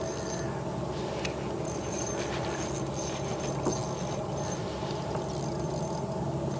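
Ultralight spinning reel being cranked against a hard-pulling fish: a steady soft whirring with a couple of light clicks.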